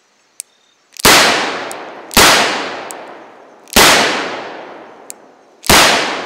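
Four shots from a Pietta replica Starr double action revolver, a .44 caliber black powder cap-and-ball gun, fired at uneven intervals of one to two seconds. Each shot rings out and dies away over about a second, and a few faint clicks come between the shots.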